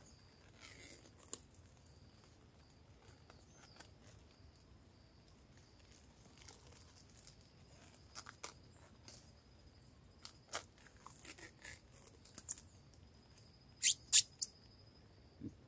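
Plastic cling film crinkling and crackling in scattered short bursts as it is stretched and wrapped tight around an air layer's substrate bag on a lime branch. A few sharper, louder crackles come near the end.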